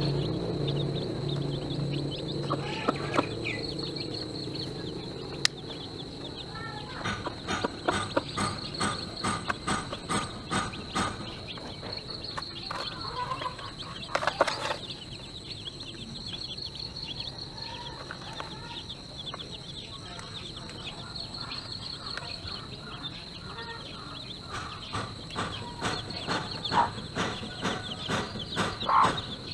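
Hen clucking low at first. Then come runs of quick sharp pecking taps as she and her chicks peck grain from a rubber feeder tray, a few seconds in and again near the end.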